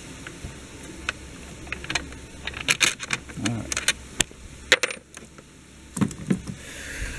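A run of light clicks and knocks as wiring and plastic engine-bay parts are handled and pushed into place, some closer together near the middle and end.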